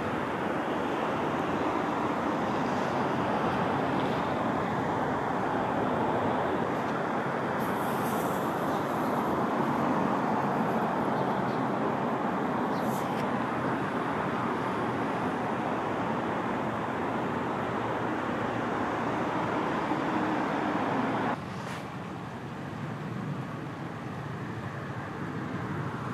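Steady rushing outdoor background noise with no distinct events. It drops abruptly to a quieter level about 21 seconds in.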